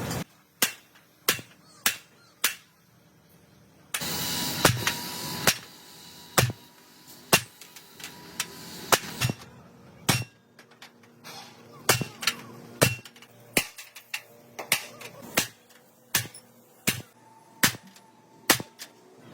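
Hammer striking a metal truck part, about twenty sharp blows at roughly one a second, some leaving a faint metallic ring.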